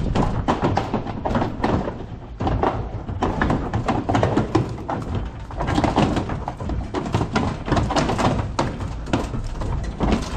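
Irregular clatter and knocks of steel gates and cattle barriers as calves are moved through, over a steady low rumble.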